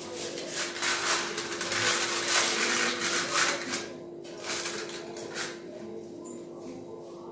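Aluminium foil crinkling as a sheet is pressed and crimped over the rim of a steel tumbler, loudest for about the first four seconds, then a few lighter rustles.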